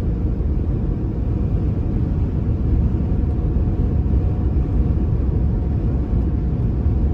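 Steady low road and engine rumble of a moving vehicle.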